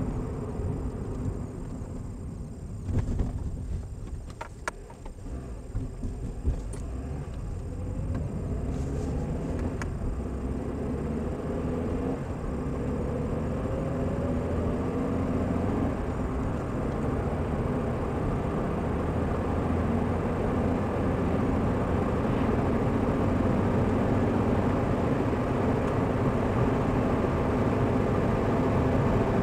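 Car engine and tyre noise heard from inside the cabin as the car accelerates from about 50 to over 90 km/h. The engine note climbs and the noise grows steadily louder. A few sharp knocks come about three to five seconds in.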